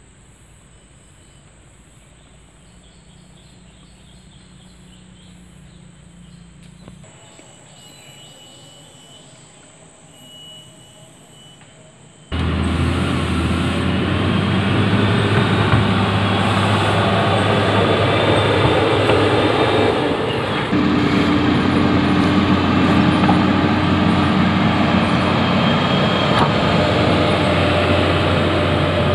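A faint steady hum for about the first twelve seconds, then suddenly the loud, steady running of a motor grader's diesel engine as the grader works, its blade spreading gravel.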